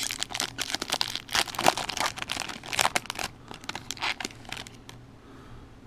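Foil wrapper of a jumbo trading-card pack being torn open and crinkled: dense crackling for about three seconds, then a few scattered crinkles that die away about five seconds in.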